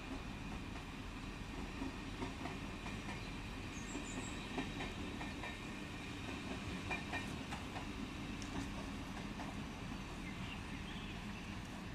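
Siemens Desiro HC electric multiple unit of the Rhein-Ruhr-Express passing at moderate distance: a steady rolling rumble with a run of wheel clicks over rail joints from about two to nine seconds in.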